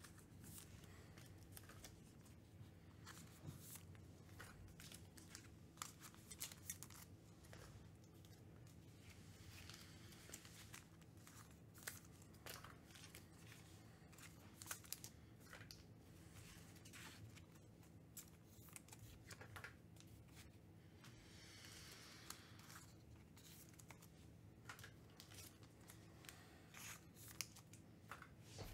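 Faint tearing and crinkling of trading-card pack wrappers, with scattered light clicks and scrapes of cards being handled, over a low steady hum.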